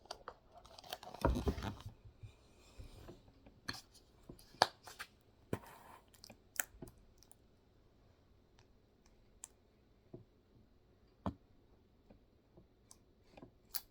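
Scattered sharp clicks and short rustling, squishing handling noises of food containers and a mayonnaise container as mayo is put on the food. The loudest handling noise comes about a second in, and the clicks thin out in the second half.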